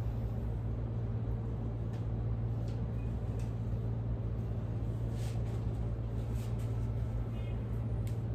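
A steady low hum over even background noise, with a few faint short rustling sounds.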